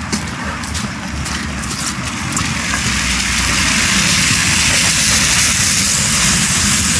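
Tractor pulling a cattle trailer drawing near: a low engine rumble under a rushing hiss that grows louder about three seconds in.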